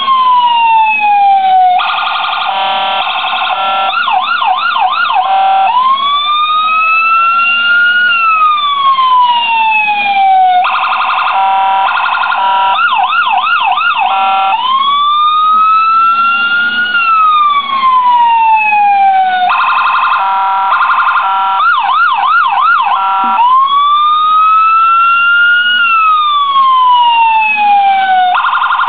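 Electronic police siren sound from a scale model police car's sound module. It cycles through its patterns: a slow wail rising and falling over several seconds, a choppy stepped hi-lo pattern, then a fast yelp, repeating about every nine seconds.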